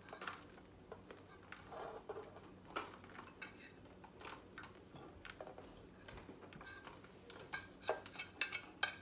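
Metal spoon scraping ground meat off a plate into an aluminium foil pan: irregular scrapes and light clinks of spoon on plate, with a few sharper clinks near the end.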